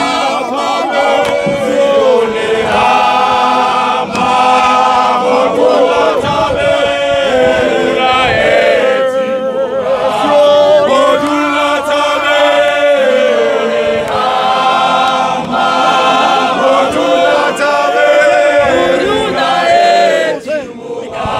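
A large group of men singing a cappella together in harmony, a hymn-like chant sung in phrases with short breaks between them.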